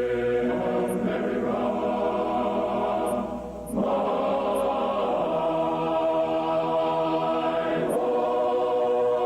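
Background music of slow, sustained chords that change every few seconds, with a brief dip in level about three and a half seconds in.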